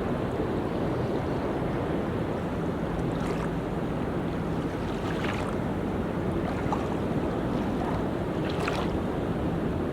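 Ocean surf on a tropical beach: a steady rushing wash of waves, with wind rumbling on the microphone.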